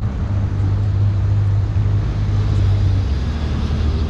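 Small fishing boat's motor running steadily, a low hum whose pitch drops slightly about three seconds in.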